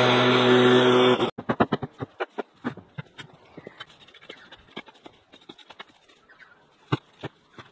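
Handheld leaf blower running steadily, then cutting off sharply about a second in. After it come scattered light knocks, snaps and rustles of brush and debris being handled.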